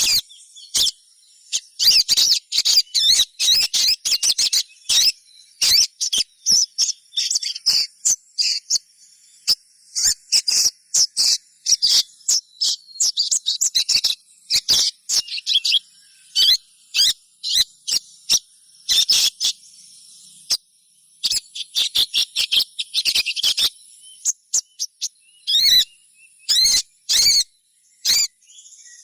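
Sogon (little spiderhunter) giving rapid, sharp, high-pitched chirps in clustered bursts, the stuttering calls used to lure and set other sogon calling.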